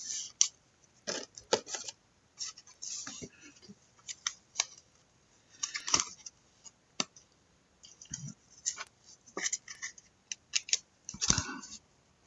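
Trading cards being handled: irregular clicks, light scrapes and rustles of card stock and plastic sleeves sliding and tapping.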